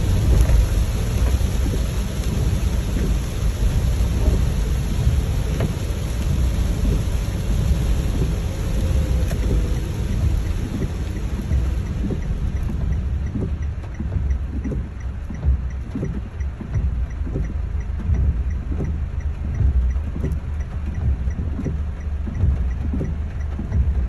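Heavy rain drumming on a car's roof and windscreen, heard from inside the cabin over the steady low rumble of the car. About halfway through the high hiss eases, leaving the scattered patter of individual drops.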